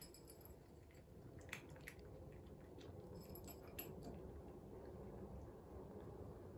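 Faint sounds of a cat eating from a dish: scattered small clicks and wet chewing, over a low room hum.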